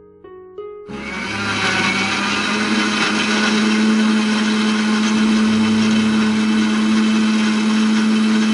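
Electric blender switched on about a second in, its motor running steadily at one constant pitch as it blends pineapple into juice.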